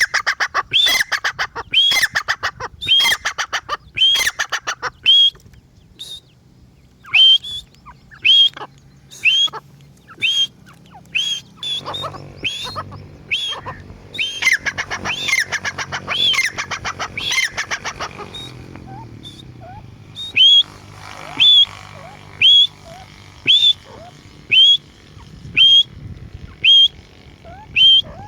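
Partridge calling over and over, a sharp rising call note about once a second. The calls come with a fast rattling chatter for the first few seconds and again in the middle.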